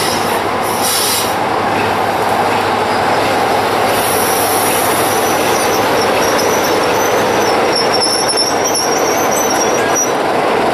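BR Class 33 diesel locomotive D6535, with its Sulzer eight-cylinder engine running, drawing a passenger train slowly into the platform and past. From about four seconds in, a thin high-pitched metallic squeal rises over the rumble as the train slows.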